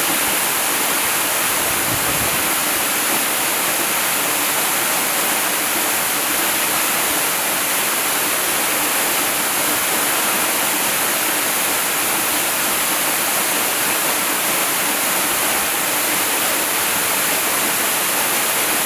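Waterfall: water falling and splashing in a steady, unbroken rush, strongest in the high hiss.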